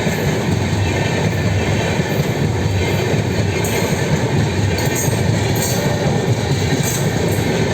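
Indian express passenger train running past at speed: a steady loud rush of steel wheels on rail.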